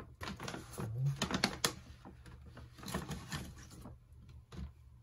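Crinkling of a paper substrate bag with irregular small clicks as it is handled and dug through, busiest for the first four seconds.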